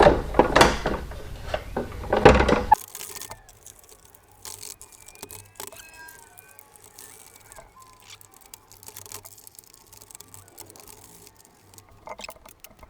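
Metal clattering and knocking of tools and parts during motorcycle reassembly for the first few seconds. After an abrupt drop about three seconds in, it is much quieter, with occasional light clicks and faint short chirps.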